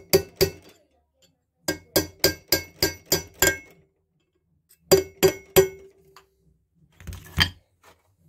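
Runs of sharp metallic taps with a short ring, in quick bursts of three to seven at about four a second. A hammer is tapping on the NSU Konsul 500 engine's crankcase as the second case half is seated over the crankshaft and its bearings.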